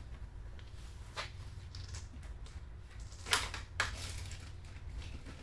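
A few sharp clicks and knocks from small parts being handled, the two loudest about half a second apart a little past the middle, over a steady low hum.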